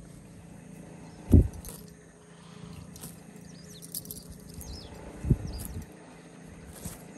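Outdoor pasture background with faint small bird chirps and two dull low thumps, the louder about a second and a half in and a smaller one about five seconds in.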